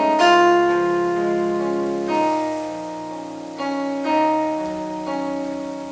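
Slow instrumental music on piano. Chords are struck about every one to two seconds and each is left to ring and fade before the next.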